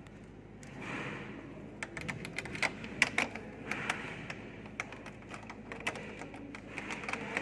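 Many light, irregular clicks and taps over a faint steady background, with a soft brief hiss about a second in.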